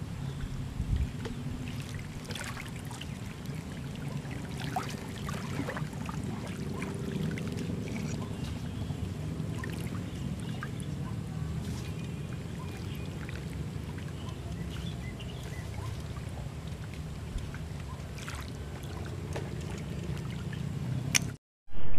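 Outdoor ambience at the water's edge: a steady low rumble with small ticks and clicks scattered through it. It cuts off abruptly near the end.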